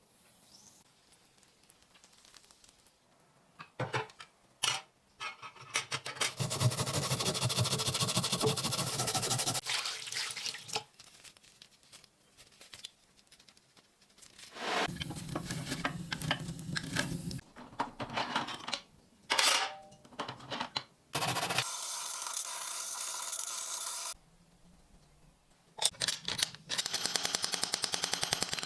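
Tools working on a rusty padlock: several bursts of steady rough noise a few seconds long, with clicks and knocks between them, and near the end a fast, even rattle.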